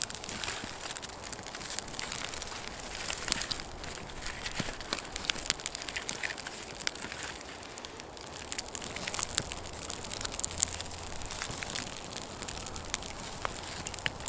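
Small fire of birch bark and dry twigs crackling, with many sharp irregular pops and snaps as kindling twigs are laid on.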